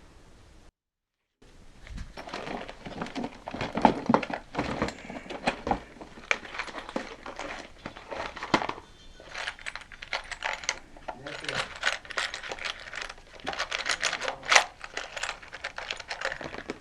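Close handling noise: a dense, irregular run of clicks, taps and rattles of objects being handled, broken by a brief dead silence about a second in.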